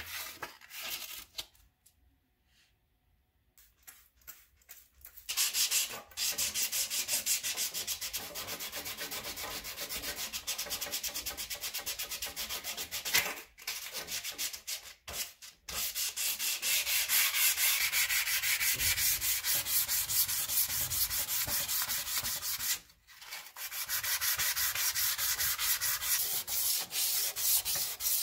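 Black sandpaper rubbed by hand in quick back-and-forth strokes along a wet steel sword blade. The steady scraping starts about five seconds in and stops briefly a few times.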